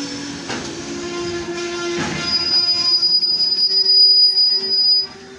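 Freight train of railway tank wagons rolling slowly past, with a loud steel-on-steel squeal. A piercing high squeal sets in about two seconds in, is loudest near the end, and cuts off suddenly shortly before the end.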